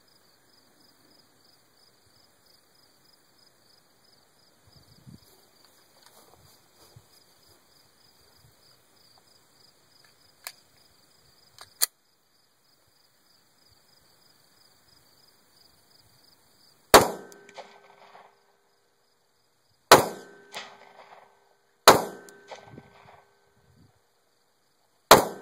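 Glock 29 pistol firing four 10mm handloads with cast 180-grain bullets, sharp shots about two to three seconds apart, each followed by a rolling echo. Before the shooting, insects chirp in a steady pulsing drone and there are two sharp clicks as the pistol is handled.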